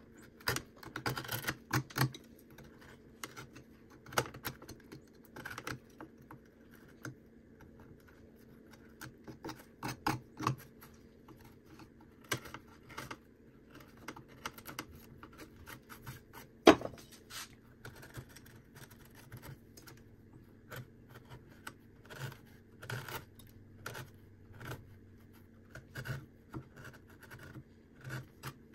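Carving knife cutting and scraping cottonwood bark by hand: irregular small slicing cuts and scratches, with one sharper click a little past the middle.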